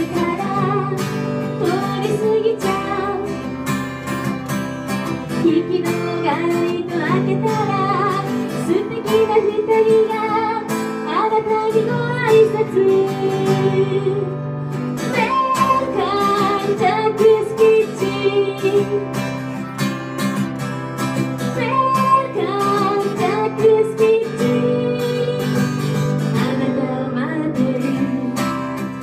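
A woman singing a song into a handheld microphone over a strummed acoustic guitar, played live.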